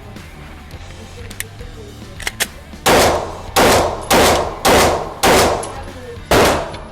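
Six shots from a Glock 17 Gen 5 9mm pistol, fired in a quick string about half a second apart with a longer pause before the last, each with a short echoing tail.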